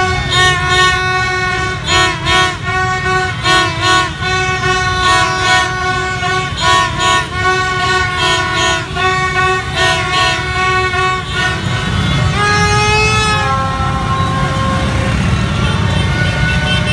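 Plastic fan horns blown in short toots in a repeated rhythm over a steady din of motorbike engines and crowd. About twelve seconds in the tooting stops and a single wavering horn note slides up and down in pitch.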